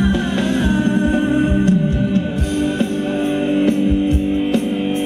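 Live band playing Thai ramwong dance music: a steady drum beat under long held notes.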